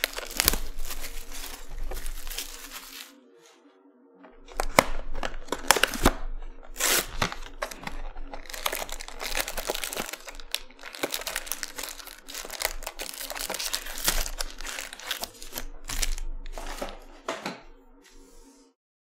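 Clear plastic shrink wrap crinkling and tearing as it is pulled by hand off a cardboard trading-card box, then the box and its foil packs being handled. The sound comes as a run of sharp crackling bursts, with a pause about three to four seconds in.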